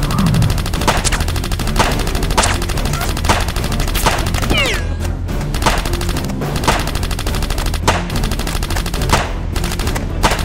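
Rapid automatic gunfire, the kind used as an action-film sound effect, with louder single shots cracking out about once a second over music.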